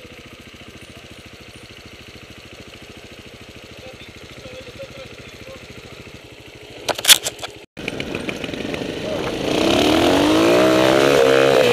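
Trials motorcycle engine idling with a steady low pulse. A few sharp knocks come about seven seconds in, and after a brief dropout an engine revs up with its pitch rising steeply.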